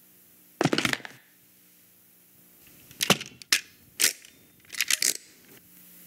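Short, sharp cracks and knocks from an animated film's sound-effects track. One clattering cluster comes about half a second in, then four separate cracks follow in the second half, over a faint low hum.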